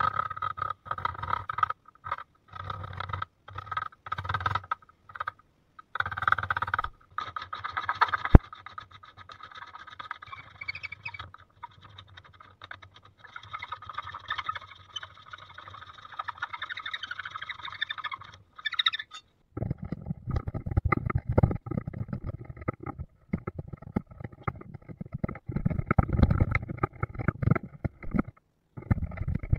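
Carving chisels and gouges cut into a hardwood pallet board by hand: scraping cuts in short stretches that start and stop abruptly, with one sharp knock about eight seconds in. About two-thirds of the way through, the cutting sounds turn heavier and deeper.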